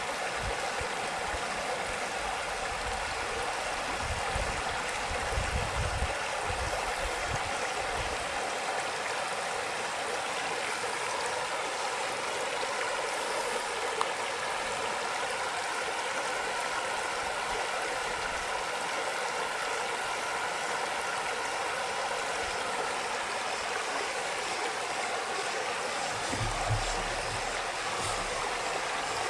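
Creek water rushing and burbling over rocks in a steady, unbroken flow, with a few low rumbles in the first several seconds and again near the end.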